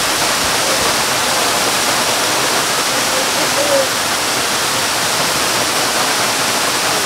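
A waterfall close by, water falling onto rocks as a loud, steady, even rush of spray.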